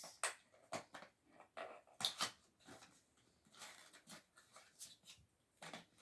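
A plastic bead pyraminx puzzle being handled and turned, making a series of faint, irregular clicks and rustles.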